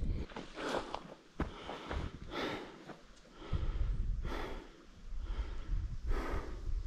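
A man's breathing and sighs close to the microphone: several separate breaths spaced a second or more apart, with a sharp click about a second and a half in.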